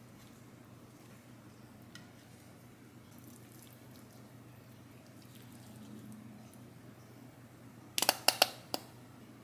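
Low kitchen room tone, then near the end a plastic mayonnaise squeeze bottle sputters out a quick series of sharp, wet spurts as the mayonnaise is squeezed out.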